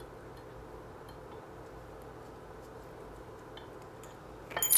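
Faint room tone, then a quick cluster of small metallic clicks and clinks near the end as the red dot's mounting screws and tools are handled against the pistol slide.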